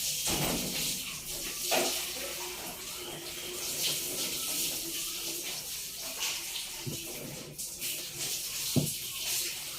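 Water running from a tap and splashing in a basin, with a couple of short knocks near the end.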